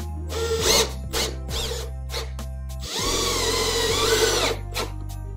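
Cordless drill/driver driving drywall screws through pressed wood into poplar: a couple of short bursts, then a longer run of the motor whine wavering in pitch as the screw seats, about three seconds in. Background music plays throughout.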